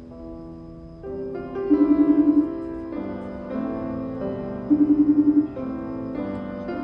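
Slow piano music with notes changing every half second or so. Twice, a short, rapidly pulsing buzz cuts in about three seconds apart and is the loudest thing heard.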